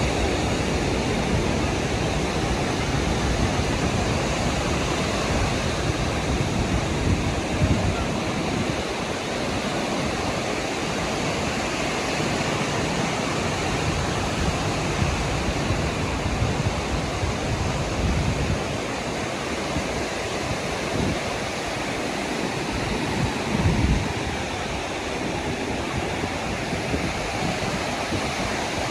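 Sea surf washing onto a sandy beach in a steady wash of noise, with wind buffeting the microphone in gusts, loudest about eight seconds in and again near twenty-four seconds.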